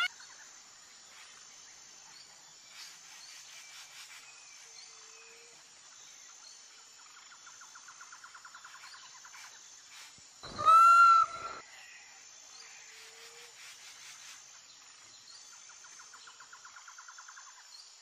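Indian peafowl giving one loud call about ten seconds in. Under it, a faint rapid trill comes twice, with a row of faint, evenly spaced high chirps.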